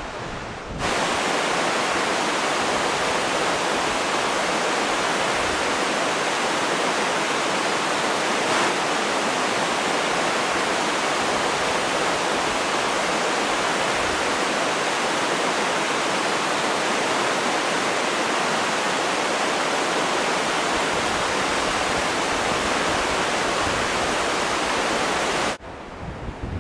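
Fast mountain stream rushing over rocks: a steady, loud rush of water that starts about a second in and cuts off shortly before the end.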